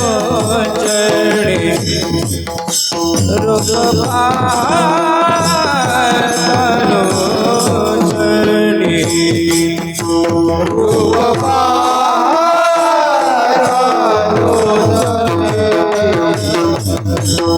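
Kirtan music: devotional singing over a steady held drone tone, with mridang drumming and small hand cymbals (tal) clashing in a quick, even rhythm.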